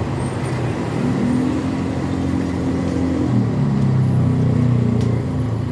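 A motor vehicle engine running, with its pitch shifting about a second in and again around three seconds in.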